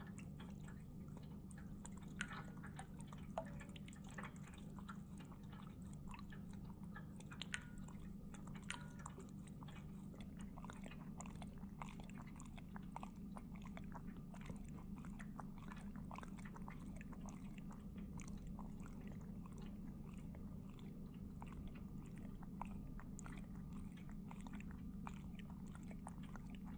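Cat lapping water at a ceramic pet drinking fountain: a run of quick, irregular wet clicks from the tongue and the trickling water. Beneath them the fountain's pump hums steadily.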